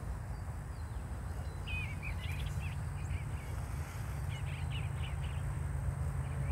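A songbird chirping in two short warbling phrases, about two seconds in and again about four and a half seconds in, over a low steady rumble.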